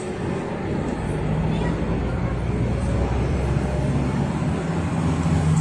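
Inside the passenger cabin of a GAZelle Next minibus, its Cummins ISF2.8 four-cylinder turbodiesel runs under way with a steady low hum over road noise, the engine note growing louder as the bus picks up speed.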